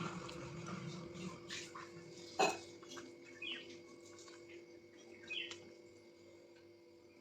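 Quiet eating sounds: soft chewing and mouth clicks, with one sharp click about two and a half seconds in. Short high chirps recur every couple of seconds over a faint steady hum.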